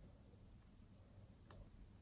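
Near silence: room tone, with one faint click about one and a half seconds in.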